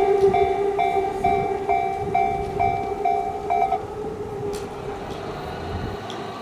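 Japanese level-crossing warning bell ringing its two-tone electronic strike about twice a second, then stopping a little before four seconds in, a sign that the train has cleared the crossing. Under it an E235-series electric train runs past, its noise fading away.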